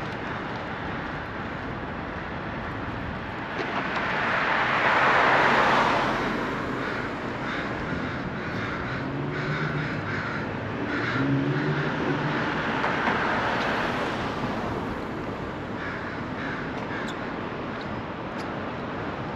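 City street ambience with traffic: a vehicle passes about five seconds in and another around thirteen seconds. Crows caw several times in the middle.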